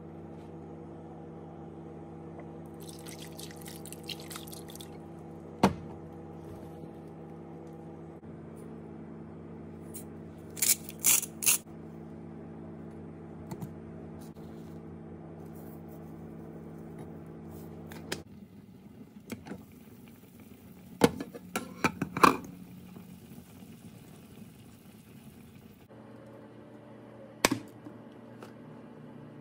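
Water poured into a saucepan of frozen mixed vegetables, and a few sharp knocks and clanks of a pot on a glass stovetop, over a steady low hum.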